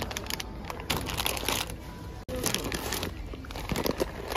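Crinkling and rustling of plastic food packaging: a bag of pasta, then a bag of granola, handled in the hand. The sound breaks off briefly about two seconds in.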